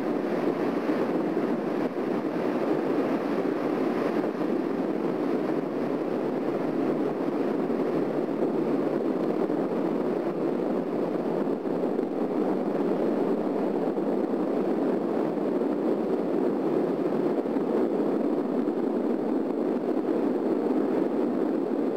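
Steady shipboard ambience on an open deck at sea: an even rushing with no distinct events.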